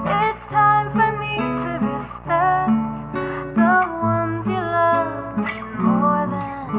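Background music led by acoustic guitar, with a melody line that glides between notes over a low bass part.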